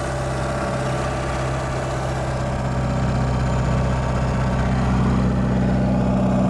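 Cummins 4BT four-cylinder turbo diesel in a Ford F-350 pickup running under way, heard from inside the cab. Steady running that grows a little louder about halfway through.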